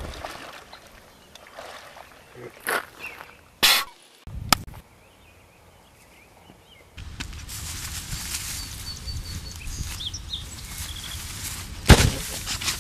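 Outdoor ambience: a few short sharp noises in the first half, then a steady rushing background with faint bird chirps, and a loud thump near the end.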